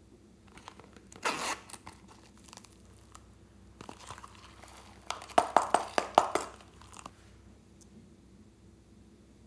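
A small holographic plastic zip purse being unzipped and handled: a short rasp about a second in, then a run of sharp crinkles and clicks from about five to six and a half seconds.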